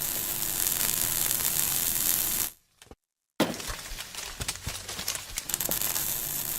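Cosen AH-320H automatic band saw running, a steady hiss over a low hum. It cuts out about two and a half seconds in, then resumes with scattered metallic ticks and knocks.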